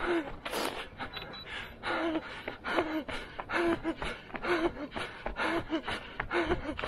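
Hard, rhythmic breathing of a runner racing at full effort, about two breaths a second, many of the exhales voiced like short gasps.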